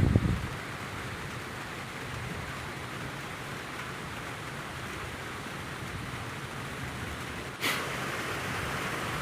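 Steady rush of falling water, a constant hiss-like noise. It opens with a brief low rumble, and about seven and a half seconds in the noise suddenly gets a little louder and brighter.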